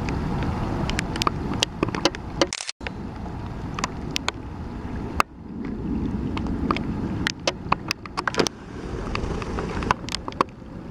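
Wind buffeting the microphone with a low rumble, with many scattered sharp ticks of raindrops hitting the camera.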